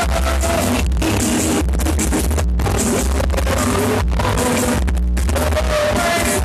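Loud dance music with a heavy, steady bass beat and a melody line over it, played over an aparelhagem sound system.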